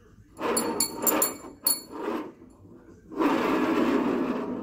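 Steel pushrods from an AMC 327 V8 clinking against each other several times as they are handled, then, about three seconds in, a single pushrod rolling steadily across the toolbox top to show whether it is bent.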